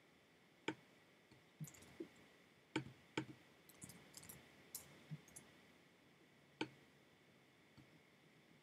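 Faint, irregular clicks of a computer mouse and keyboard, a dozen or so short taps, some in quick clusters.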